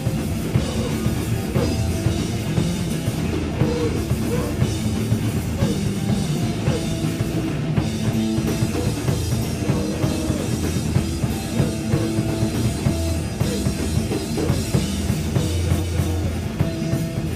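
Loud rock music from a band: drum kit pounding a steady beat under guitar.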